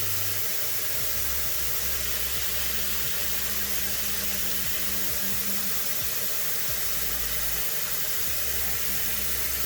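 Hot water running steadily from a sink tap into a humidifier's water tank as it is filled.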